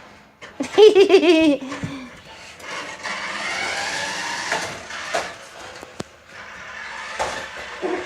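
A person's high, wavering laughing squeal lasting about a second, falling in pitch. It is followed by a few seconds of steady whirring, the noise of a remote-control car running across the floor.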